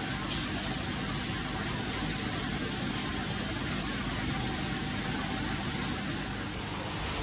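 Steady rushing hiss and low hum of aquarium water pumps and filtration running.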